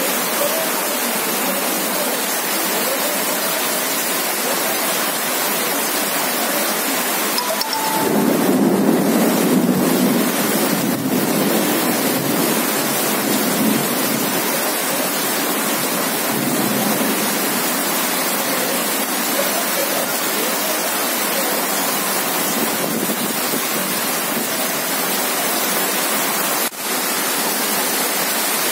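Heavy rain pouring onto a waterlogged paved street, a dense, steady hiss of splashing drops. About eight seconds in, a deeper rushing sound swells for several seconds, then eases back.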